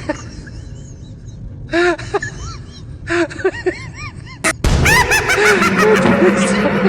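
A few short honking calls, then a sharp click about four and a half seconds in, after which a flock of geese breaks into loud, dense, overlapping honking.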